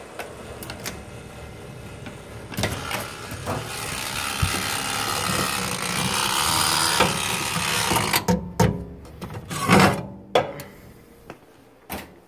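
Handling of a countertop oven: clicks of its control buttons, a rushing noise that builds for several seconds, then a run of clunks and knocks as the door is worked and a plate is handled.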